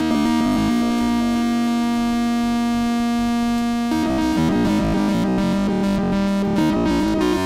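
Teenage Engineering OP-1 synthesizer played on its keys: one note held for about four seconds, then a run of shifting, wavering notes. The sound passes through the OP-1's lo-fi phone effect, with an LFO modulating one of the effect's parameters.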